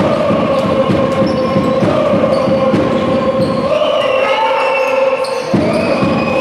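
Basketball being dribbled on a hardwood court, with sneaker squeaks, over a steady din of crowd voices in a large arena.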